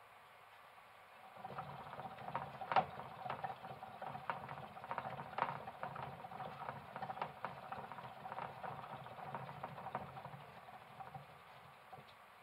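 A plastic hamster wheel spinning with a hamster running in it: a low rumble and a steady tone with irregular clicks and taps of the feet and wheel. It starts about a second in and dies away near the end.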